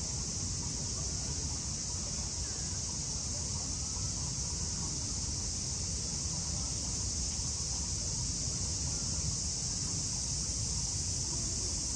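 Steady, high-pitched drone of a summer cicada chorus over a low background rumble.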